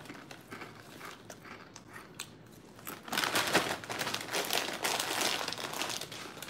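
Crunchy chewing of Blue Heat Takis rolled tortilla chips. About three seconds in, the foil chip bag crinkles for a few seconds as it is handled.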